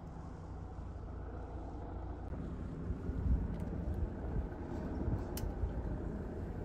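Low, gusting rumble of wind buffeting the microphone outdoors, swelling about three seconds in, with one faint click later on.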